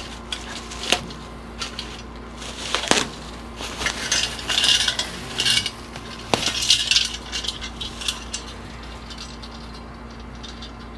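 Metal parts clinking and knocking as a stump grinder's parts are unpacked from the crate, in irregular clusters of clatter that grow sparser near the end.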